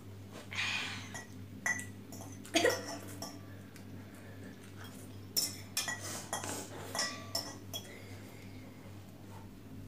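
Metal forks and spoons clinking and scraping against glass bowls of instant noodles while they are eaten, a run of sharp clinks through the middle.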